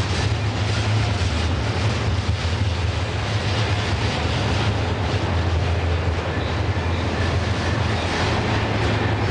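Double-stack intermodal container train's well cars rolling past, a steady low rumble with the rattle and clatter of steel wheels on the rails.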